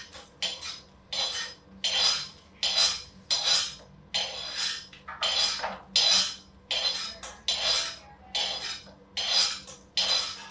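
A steel spoon scraping dry-roasted whole spices out of a metal kadhai, metal on metal. It goes in quick repeated strokes, about sixteen in all, each a short rasp that starts sharply and fades.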